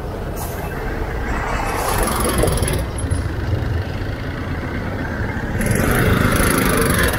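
Busy road traffic: vehicles running with a steady low rumble and hiss, getting a little louder near the end.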